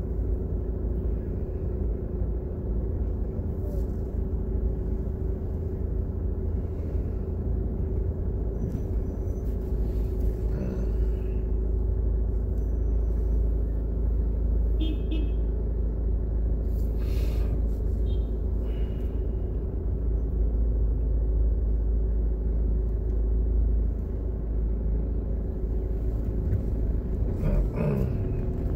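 Steady low rumble of a car's engine and tyres heard from inside the car as it drives slowly along a street, with a steady hum and a few brief street sounds passing, among them one short high tone about halfway.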